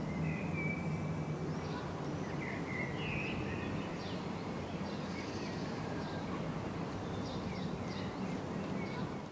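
Outdoor ambience: a steady background hiss with a low hum under it, and birds chirping now and then.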